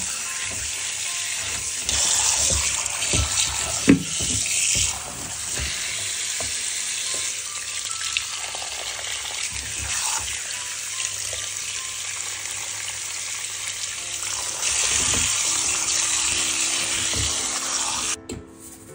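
Kitchen tap water running over raw chicken pieces in a stainless steel colander while hands rub and turn them, a steady splashing hiss that swells louder twice, with a sharp knock about four seconds in. The water stops abruptly near the end and music comes in.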